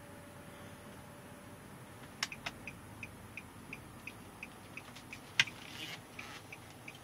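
Car's turn-signal indicator ticking steadily about three times a second, starting a little over two seconds in, over a low cabin rumble. A sharp click comes just before the ticking starts and a louder knock about five seconds in.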